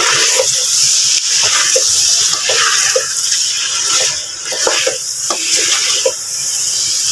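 Chicken pieces with ginger and garlic sizzling in hot oil in a metal pot, a steady hiss, while a spatula stirs them with occasional scrapes and knocks against the pot.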